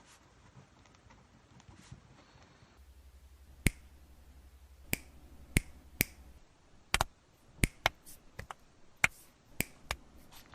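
A dozen or so sharp clicks, irregularly spaced, starting a few seconds in and coming closer together toward the end.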